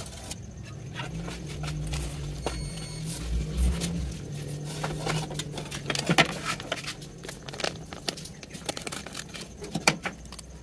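Metal spoon clinking and scraping against a stainless steel bowl, in scattered sharp clicks that come thickest around the middle and near the end. A low steady hum runs under the first half and fades about six seconds in.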